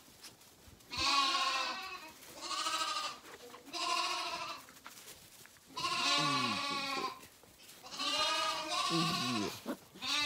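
Zwartbles lambs bleating about six times in quick succession, high calls each lasting up to a second, as bottle-fed lambs calling for their morning bottle. Lower, sliding calls overlap two of the bleats.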